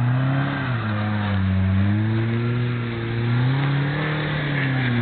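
Off-road buggy's engine revving hard under load on a steep dirt climb, its pitch surging up and falling back several times.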